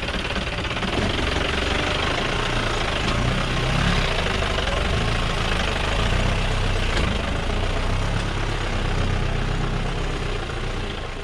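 Off-road jeep's engine running steadily as it drives up a rough rocky track, with a dense rushing noise over the low engine drone.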